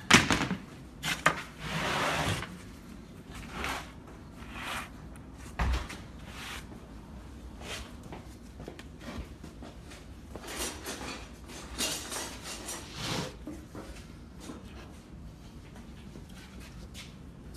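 Wooden sand-mould flasks being handled and moved on a workbench: scattered wooden knocks and scrapes, with a sharp knock right at the start and a dull thump about six seconds in, thinning out to quieter handling later.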